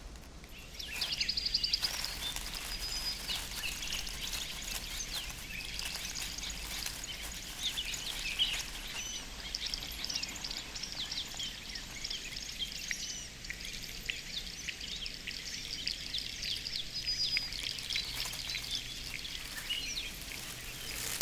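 Outdoor ambience of many small birds chirping and calling in quick overlapping notes over a steady hiss, fading in about a second in.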